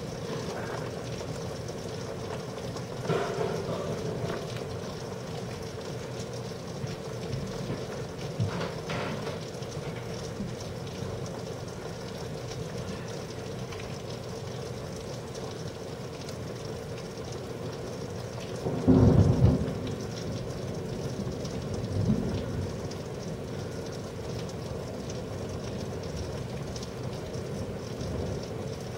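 Steady rain with several rolls of thunder. The loudest is a heavy low rumble about two-thirds of the way through; smaller ones come a few seconds in, around a third of the way through, and just after the big one.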